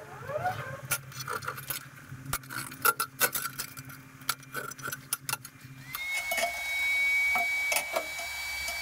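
Steel brackets and hand tools clinking and knocking on a steel workbench. About six seconds in, a small handheld electric rotary tool starts with a short rising whine, then runs at a steady high pitch.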